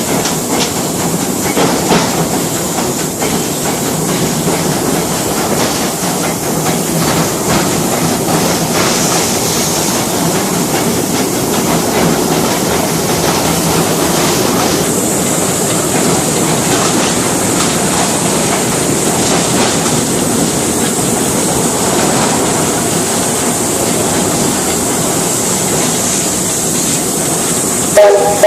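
Train running along the track: a steady rumble with faint clicks of the wheels over the rails.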